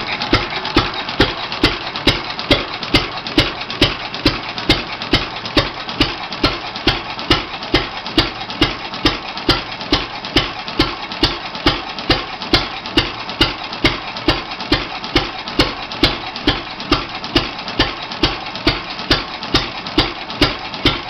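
Goold, Shapley & Muir single-cylinder hit-and-miss stationary engine running, its exhaust beating in an even rhythm of about two or three beats a second over the clatter of its valve gear and flywheels.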